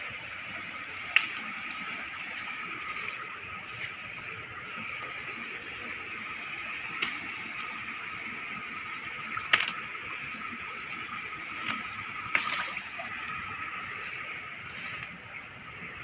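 Water running steadily, with a few sharp splashes or slaps about a second in, around seven seconds, near the middle and about twelve seconds in.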